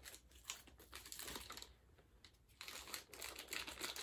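Scissors snipping away plastic wrapping, a run of faint clicks and crinkles that pauses about halfway through and then resumes.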